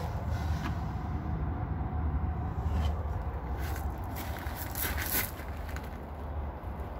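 A few crunching footsteps on loose gravel, the loudest about five seconds in, over a steady low rumble.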